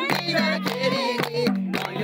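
A song playing: a singer's wavering melody over a bass line and a steady beat of about three strokes a second.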